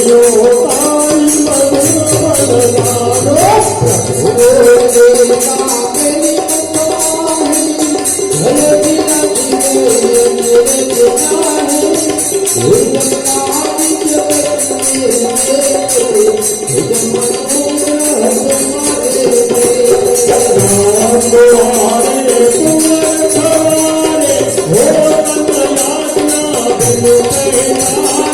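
Devotional bhajan music: a continuous melodic line over steady, rhythmic jingling percussion, like a tambourine or small cymbals.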